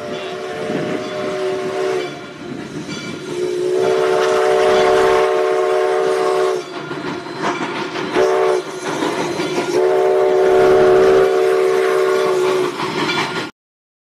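Steam locomotive whistle blowing the level-crossing signal: two long blasts, a short one and a final long one, several notes sounding together over the running noise of the approaching train. It cuts off suddenly near the end.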